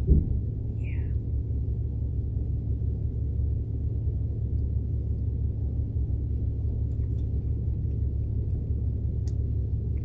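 Diesel semi-truck engine running steadily, a low even rumble heard inside the cab. A single knock right at the start rings down briefly.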